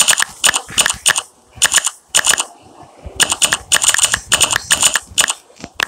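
Taps on a phone's touchscreen keyboard as a text message is typed: sharp, alike clicks in quick runs of two or three, about twenty in all.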